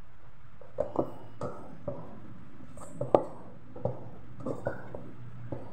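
A hand kneading a sticky mix of minced meat, flour and water in a pot: irregular wet squishing with short knocks and clicks against the pot, the sharpest about three seconds in.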